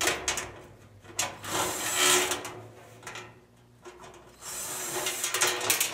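Tool scraping and rubbing against the sheet-metal base of a gas clothes dryer in several short bursts, as the screws holding the gas burner unit are worked out.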